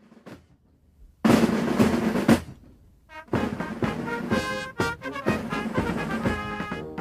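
Recorded music: a snare drum roll starts about a second in and dies away, then band music with brass strikes up.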